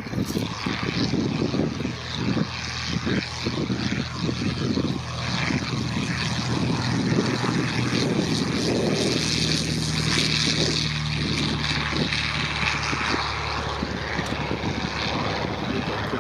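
Piston-engined propeller aircraft flying past, a steady engine drone that swells about halfway through.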